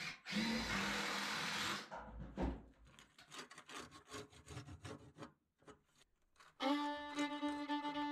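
A rough scraping rub on wood lasts about a second and a half, followed by a single knock and faint light ticks. About two-thirds of the way in, fiddle-led background music starts.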